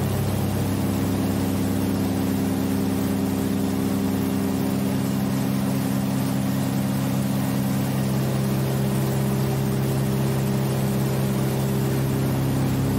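Steady drone of a PBY-5A Catalina's two Pratt & Whitney R-1830 Twin Wasp radial engines in climbing flight, heard inside the cockpit.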